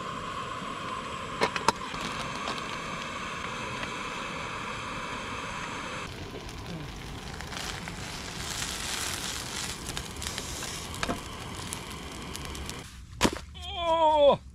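Coleman gas canister stove burning steadily under a hinged sandwich-toaster pan, with food sizzling in the pan and two sharp metal clacks of the pan about a second and a half in. Near the end comes a sharp click, then a short falling whine.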